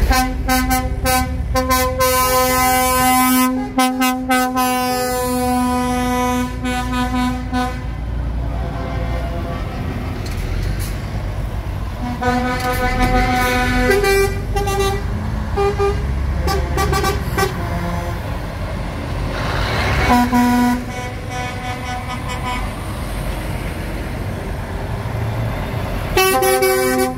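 Lorry air horns sounding as a convoy of heavy trucks passes: one long blast of about eight seconds, then several shorter blasts later on. Under the horns is the steady low rumble of diesel engines.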